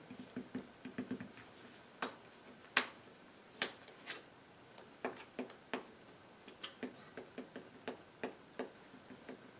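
Sleeved trading cards being handled at a table: irregular light clicks and taps, a few sharper ones in the first half and a run of quicker small ticks near the end.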